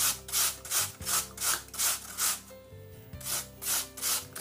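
A peeled apple rubbed up and down a stainless steel box grater: rhythmic rasping strokes, about three a second, with a short pause a little past halfway.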